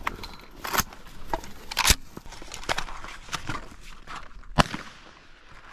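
Dry brush, twigs and grass crackling and rustling as a hunter shifts in a brush ground blind, with a few sharp snaps, the loudest about two seconds in.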